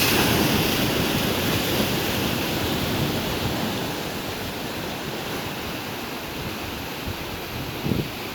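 Pacific surf breaking and washing around the rock below, loudest at the start and easing off over the next few seconds, with wind on the microphone. A brief low bump comes near the end.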